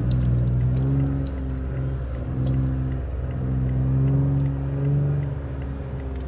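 Off-road vehicle's engine running as it drives a sandy desert track, heard from inside the cab, its note easing and picking up a few times with the throttle. Light rattling clicks come from the cab in the first second or so.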